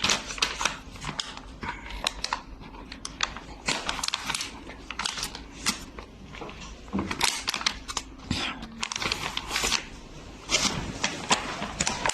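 Irregular clicks, crackles and rustling from something being handled and picked at close to the microphone, in quick flurries.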